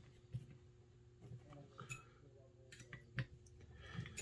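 Small metal parts of a semi-automatic Marauder air rifle clicking and tapping as they are handled and worked into place during reassembly: a few faint, scattered clicks.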